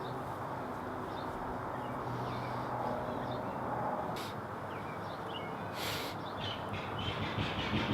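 Outdoor ambience: a steady background hum with birds chirping on and off. Two short hissy sounds come about four and six seconds in.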